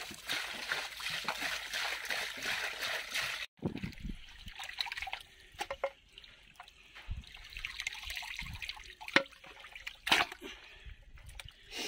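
Water pouring in a steady stream from a plastic jerry can into a tub of raw chicken pieces, stopping abruptly about three and a half seconds in. Then hands sloshing and splashing chicken pieces in a tub of water while washing them, with scattered drips and splashes.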